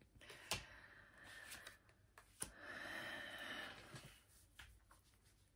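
Near silence with faint handling noises: a few soft taps and quiet rustling from tarot cards being handled on a table.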